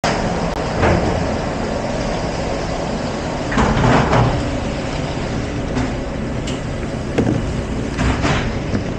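Commercial kitchen dish room: a loud, steady rushing noise from running equipment, with dishes and racks clattering several times, most strongly about three and a half to four seconds in.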